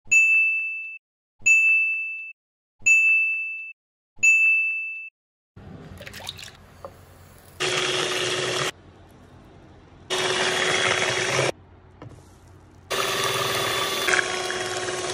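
A bright ding rings out four times about a second and a half apart, each dying away. Then a Bluesky electric hand mixer whirs in three bursts of a second or two, its beaters churning thin liquid batter in a ceramic bowl.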